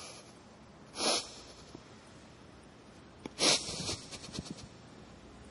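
A man weeping: two short, sharp sobbing breaths or sniffs, one about a second in and a louder one about three and a half seconds in, followed by a few faint catches of breath.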